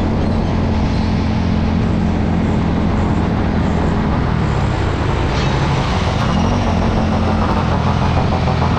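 Motorbike engine running steadily at road speed under a rush of wind noise. The engine pitch briefly rises and falls about six and a half seconds in.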